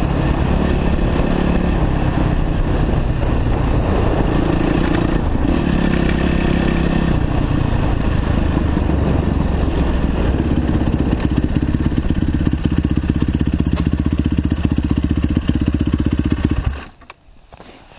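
2009 Yamaha YZ450F's single-cylinder four-stroke engine running as the dirt bike rides down a rough dirt road, its pitch stepping up and down with the throttle, then stopping abruptly near the end.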